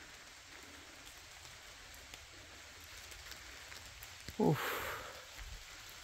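Faint steady outdoor hiss with light scattered patter. About four and a half seconds in comes a brief falling voice-like sound, then a short breathy rush, the loudest moment.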